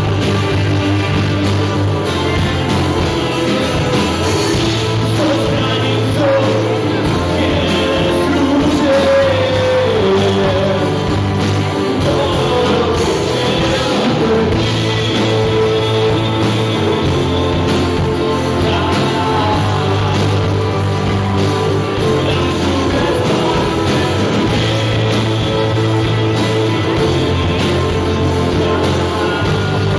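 Rock band playing a song: electric guitars, bass, keyboard and drums, with a lead melody that bends up and down in pitch.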